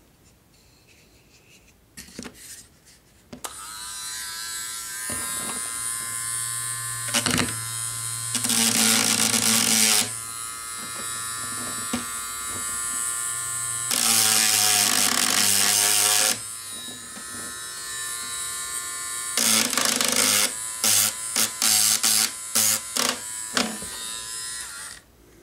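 Dremel rotary tool running with a steady high whine, grinding down the over-long rail ends of model railroad track. It starts a few seconds in, turns louder and harsher in three longer grinding passes, then in a string of short touches before it stops near the end.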